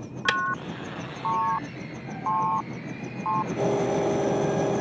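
A switch click, then short two-note electronic beeps about once a second from a helicopter cockpit console as the audio sensor is switched on, followed from about three and a half seconds in by a steady electronic drone, over the helicopter's continuous cabin noise.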